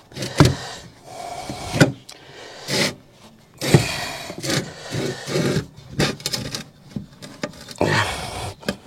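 Scooter tyre being pushed onto its rim by hand: the lubricated rubber bead rubs and scrapes against the wheel rim, with a few sharp knocks as the wheel and tyre are handled.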